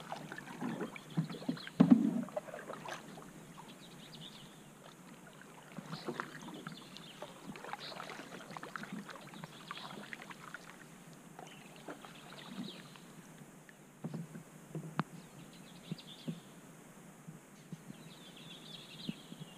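Canoe paddles dipping and pulling through calm river water, with splashes and drips between strokes and a few sharp knocks, the loudest about two seconds in.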